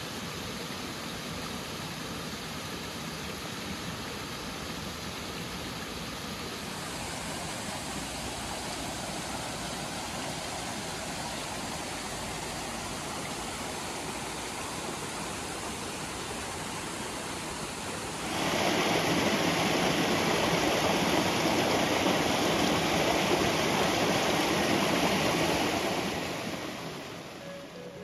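Mountain creek rushing over rocks and small cascades, a steady hiss of running water. It turns markedly louder about two-thirds of the way through, then fades out near the end.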